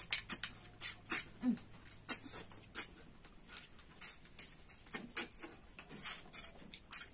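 Sharp, wet sucking slurps as cooked snails are sucked out of their shells, irregular, about three a second.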